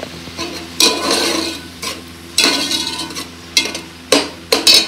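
A metal perforated skimmer stirring chicken curry in an aluminium pot, scraping around the pot in two long strokes and then three short ones, over the sizzle of the simmering gravy. The chicken is about half cooked.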